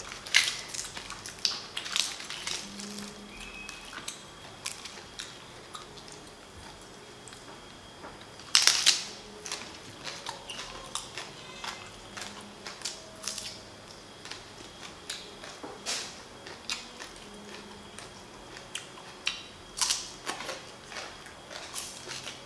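Crisp, irregular crunching and crackling of raw Chinese green onion stalks being bitten, chewed, peeled and snapped by hand. The loudest crunch comes about nine seconds in.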